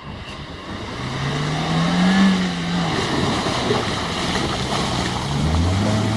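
Off-road 4x4 engine revving: its pitch rises and falls about two seconds in, then settles into a steadier, lower note near the end, over a constant rushing noise.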